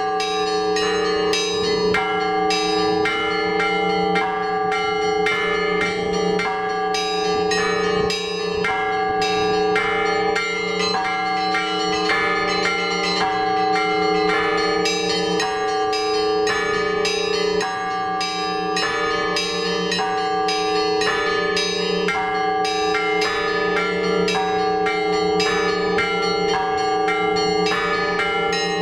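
Orthodox church bells rung by hand by a bell ringer: a quick, continuous rhythm of strokes on the smaller bells over the steady hum of the larger bells.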